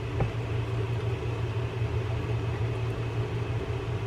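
Steady low background hum, with one light click about a quarter second in, as a screwdriver works a screw into the side plate of a fishing reel.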